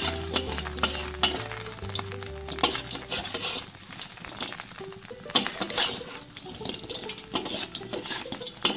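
Metal spatula scraping and knocking against a pan while stirring and tossing oat-coated fried chicken pieces, with sizzling as the chicken is coated in a butter and egg-yolk sauce.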